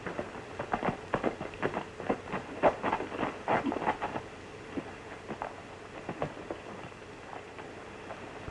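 Horses' hooves clattering in an irregular run of knocks, dense for the first four seconds and then thinning out, on an old western film soundtrack with a faint steady hum.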